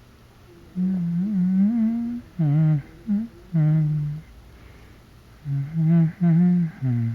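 A voice humming in several drawn-out phrases, its pitch gliding up and down, with short pauses between phrases.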